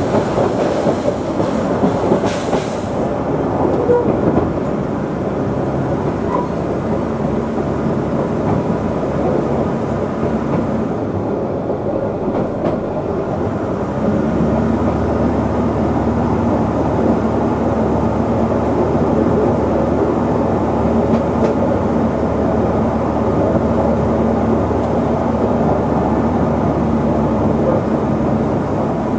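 QR 2000 class diesel rail motor running along the track, heard from on board as a continuous steady running noise. About halfway through, a steady low engine hum comes in and holds.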